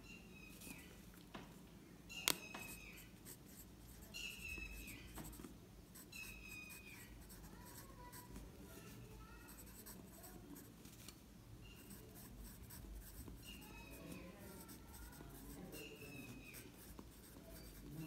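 Apsara Absolute wooden graphite pencil writing on lined notebook paper: faint scratching in short strokes, with a sharp tap about two seconds in.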